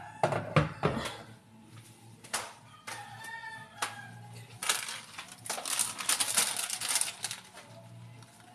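Kitchen handling noises: a few sharp clicks and knocks, then about two and a half seconds of dense crinkling from about four and a half seconds in, as of a plastic packet being handled.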